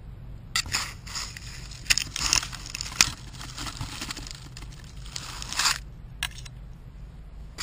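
Dry sticks and dead leaves scraping and crackling against the camera as it is pushed through a dense thicket, in irregular bursts of rustling with a few sharp cracks.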